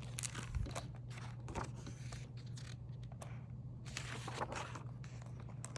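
Paper of a picture book being handled and its pages turned: faint, irregular rustling and crinkling, over a steady low electrical hum.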